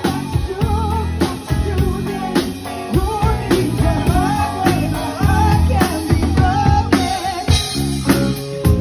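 A live rock band playing: a woman sings the lead over electric guitars, bass guitar and a drum kit.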